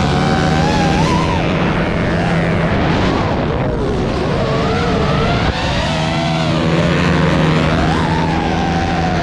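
High-revving motor whine from an FPV drone's propeller motors and racing motorcycle engines, its pitch wavering up and down with the throttle over a steady low hum.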